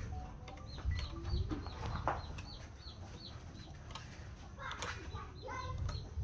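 Bird calls: a run of short, quick chirps repeated about three times a second in the first half, then a lower call with a few notes about five seconds in.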